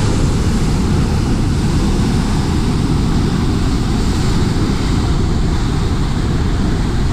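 Water rushing through an open dam spillway in a loud, steady wash, with wind buffeting the microphone.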